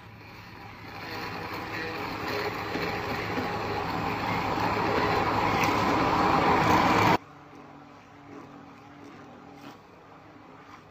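Hand-held immersion blender running in a beaker, puréeing chopped green herbs and liquid into a smooth sauce. It grows steadily louder, then cuts off suddenly about seven seconds in, leaving a much quieter low hum.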